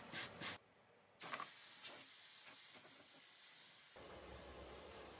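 The last two strokes of a brush scrubbing the charred plywood surface, then after a short gap a steady hiss for about three seconds, followed by a faint low hum.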